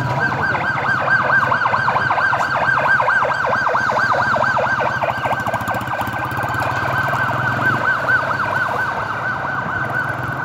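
Emergency vehicle siren on a fast yelp, its pitch sweeping rapidly up and down several times a second, with a vehicle engine's low hum beneath.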